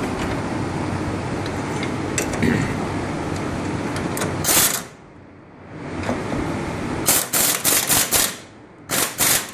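Pneumatic impact wrench rattling in short bursts, tightening the lower shock-mount bolt on a John Deere Gator 825i's front suspension. There is one burst about halfway through, then a string of quick bursts near the end.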